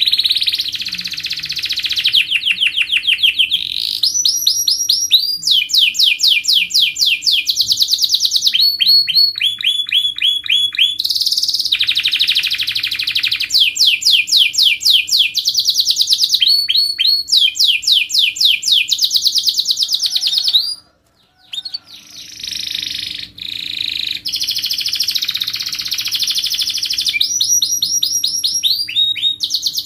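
Domestic canary singing a long, near-continuous song: high phrases of fast repeated chirps alternate with tight, buzzing rolls, with one short break about two-thirds of the way through.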